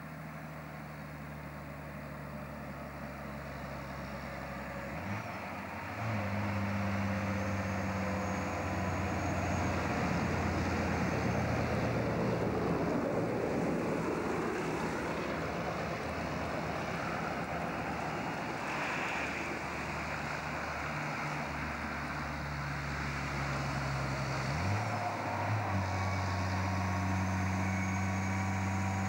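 Diesel engine of a loaded log truck running under load as it comes closer, getting louder. Its note steps up to a higher pitch twice, about five seconds in and again near the end, as gears are changed.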